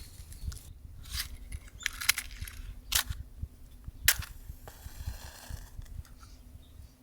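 Several sharp clicks and knocks, about five in the first four seconds, over a low steady rumble.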